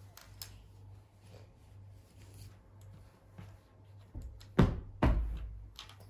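Household objects being handled: light clicks and knocks over a low steady hum, then two loud thumps about half a second apart near the end.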